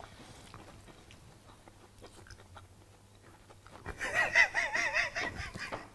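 Faint chewing of food, with small scattered clicks. About four seconds in, a louder wavering pitched sound comes in and lasts about two seconds.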